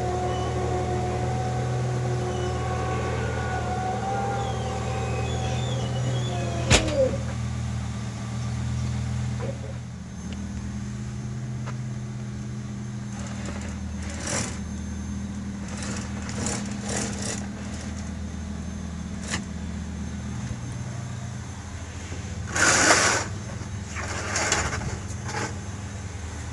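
Steady low hum of a running engine heard inside a motorhome. A higher whine stops with a sharp click about a quarter of the way in and falls in pitch as it dies. Scattered knocks and rustles follow, the loudest about three-quarters of the way through.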